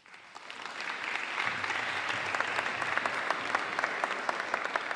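Audience applauding in a hall, building up over the first second and then holding steady with many individual hand claps.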